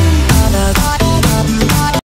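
Electronic background music with a steady drum beat and held synth notes, stopping suddenly at the end.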